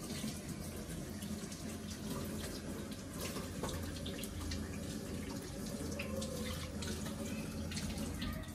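Kitchen tap running steadily into a sink while hands are washed under it, with small splashes and clicks.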